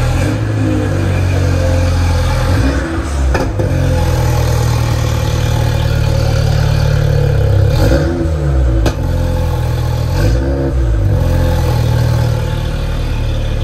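Mini Cooper engine running at idle, heard right at its twin centre exhaust tips, with two short throttle blips that lift and drop the revs about 8 and 10 seconds in. A couple of sharp cracks stand out above the steady exhaust note.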